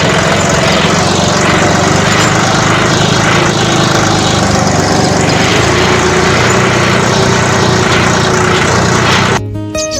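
A small motor running loud and steady, with a dense whirring noise. It starts abruptly and cuts off suddenly near the end.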